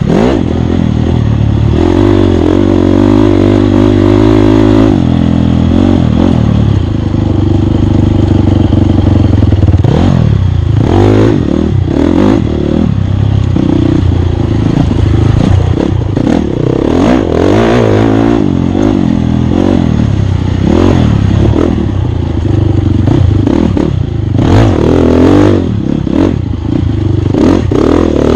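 Off-road racing motorcycle's engine running hard and loud, revving up and down as the throttle opens and closes. Clattering knocks and scrapes come in now and then, thickest in the second half.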